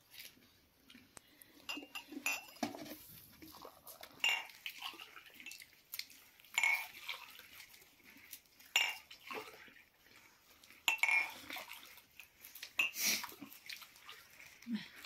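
Glass tea cups and dishes clinking as they are handled at a meal: a dozen or so short, irregular clinks and knocks.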